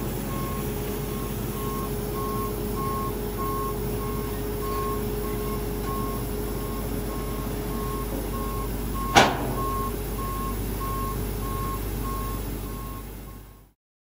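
Combine harvester backing down off a trailer: its engine runs steadily under a backup alarm beeping at an even pace. About nine seconds in comes a single sharp bang, the loudest sound, and the sound cuts off near the end.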